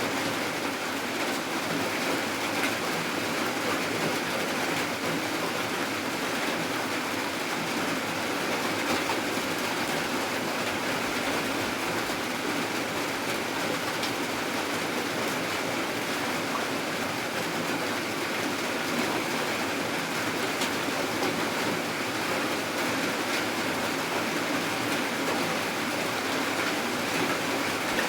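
Steady rain falling at night: an even, unbroken hiss peppered with fine patters, with no pauses or changes.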